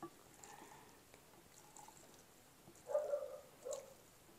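Faint, wet squelches of set gelatin cubes being scooped and shifted with a silicone spatula in a glass baking dish, heard about three seconds in and again shortly after; otherwise nearly quiet.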